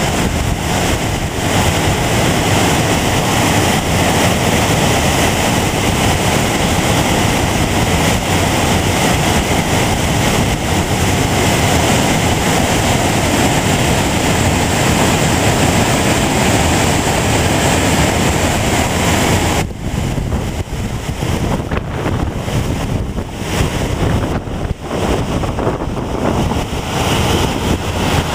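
Waterfall pouring over a wide rock ledge: a loud, steady rush. About twenty seconds in it drops and turns uneven, with wind buffeting the microphone.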